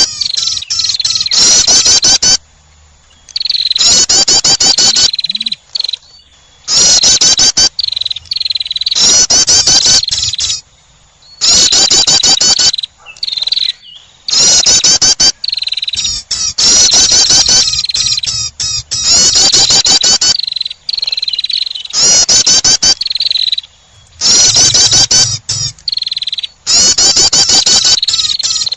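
Looped lure recording of prenjak (prinia) calls: loud bursts of rapid, high chattering notes, each about one to two seconds long, repeating with short pauses.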